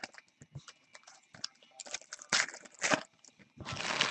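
Baseball trading cards and foil packs being handled: a run of rustling, crinkling and small clicks, with louder swishes about two seconds in, around three seconds and again near the end.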